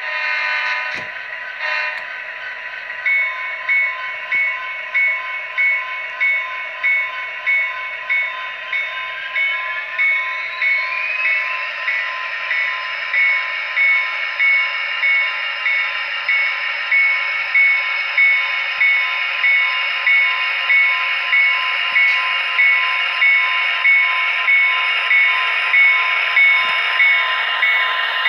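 Digital sound from a Tsunami decoder in an HO-scale Athearn Genesis SD60I model diesel locomotive, played through its small onboard speaker with no low end. A few short horn blasts sound in the first two seconds. From about three seconds in, the bell rings steadily at roughly one and a half strokes a second over the diesel engine sound, which revs up with a rising whine around ten seconds in as the locomotive pulls away, then holds.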